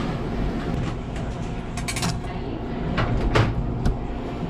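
Fish being handled on a wooden cutting board: a few sharp knocks and slaps, the loudest about three and a half seconds in, over a steady low rumble of kitchen machinery.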